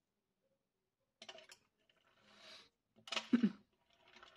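Light handling noises as foamiran foam petals are handled and heated on a clothes iron: a few soft clicks, a brief rustle, and a louder cluster of knocks about three seconds in.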